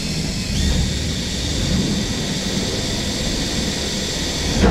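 Cordless drill running at steady speed as its bit bores through a sheet-metal race-car deck panel: a continuous motor whine with grinding.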